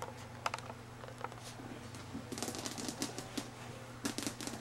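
A puppy's claws clicking on a tile floor as it trots about: scattered taps, with a quick flurry of them around the middle and another short run near the end.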